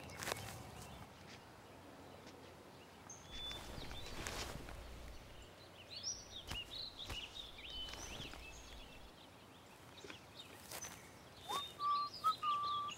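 Quiet forest ambience with birds chirping, a few soft knocks, and a clear whistled bird note held near the end.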